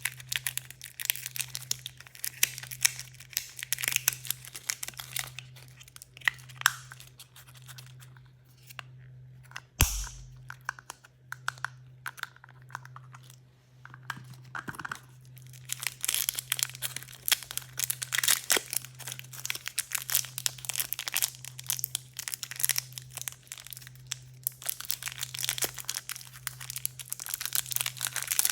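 Crinkly plastic wrappers of toy blind bags and surprise packs being torn open and crumpled by hand, in dense runs of crackles, with a single thump about ten seconds in. A steady low electrical hum runs underneath.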